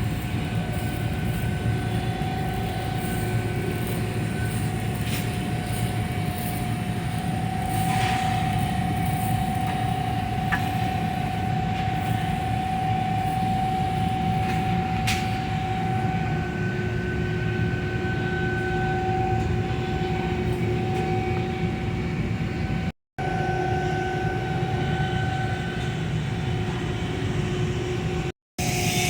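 Steady machinery drone with a low rumble and a constant high whine, broken twice near the end by a brief gap of silence.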